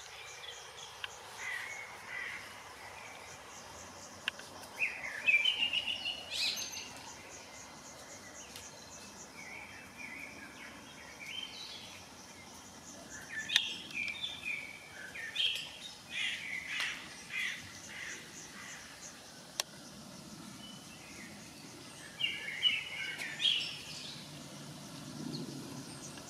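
Birds chirping and calling in short bursts of several quick notes, separated by quiet stretches of a few seconds, over faint outdoor background noise.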